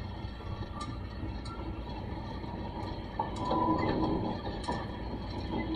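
Passenger train running, heard from inside the car: a steady rumble with faint steady tones and light clicks, growing louder about three seconds in.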